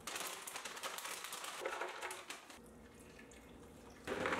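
Liquid pouring and splashing into a Vitamix blender jar for a couple of seconds. Near the end a louder steady sound starts up as the blender begins to run.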